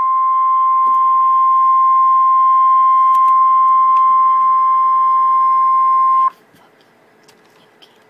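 Emergency Alert System attention tone for a severe thunderstorm warning: the single steady NOAA Weather Radio alert tone, played through laptop speakers. It cuts off suddenly about six seconds in, leaving a quiet room with a few faint ticks.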